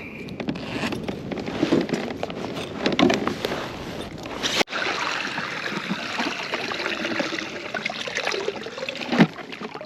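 Water trickling and splashing around a kayak, with scattered small knocks of handling. The sound drops out sharply for an instant about halfway through, then carries on as a steadier hiss.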